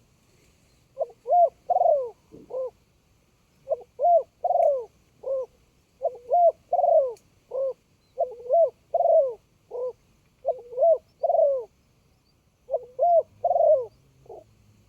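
Spotted dove cooing in repeated phrases of three to four low, arching coo notes, a new phrase every couple of seconds.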